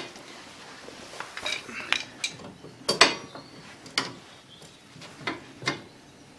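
Metal hand tools clinking and knocking against the lawn tractor's front steering joint: a string of separate metallic clicks and taps, the loudest about three seconds in.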